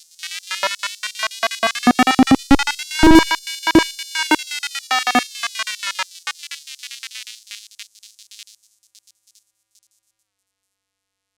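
Synthesized robotic sound effect: a fast chattering run of electronic tones with gliding pitch and rapid clicks. It is loudest about three seconds in and fades out around eight seconds in.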